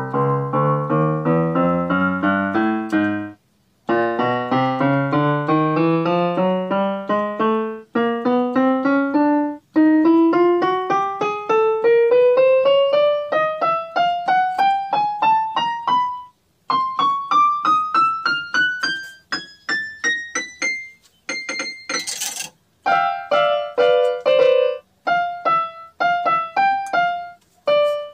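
Davis D-208 electronic keyboard played one note at a time, mostly in long rising runs up the keys as each key is tried out. A few short repeated notes follow near the end, with a brief hiss-like burst just before them.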